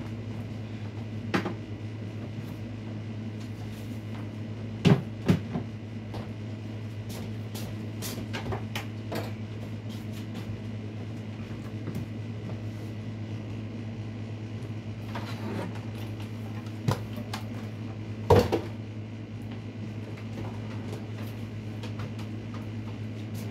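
Knocks and clatters of household cleaning over a steady low hum: a pair of sharp knocks about five seconds in, a louder one around eighteen seconds, and a few smaller taps between.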